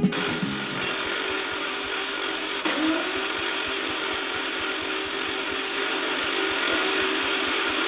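A motor-driven machine running steadily with a whine and a grinding noise. About three seconds in, the whine dips briefly with a click, then comes back to pitch.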